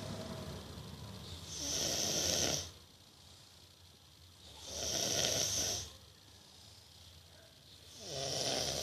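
A two-year-old boy snoring in his sleep: three snores about three seconds apart, each a rough breath with a hiss on top. His mother is unsure whether the noisy sleeping is sinus-related.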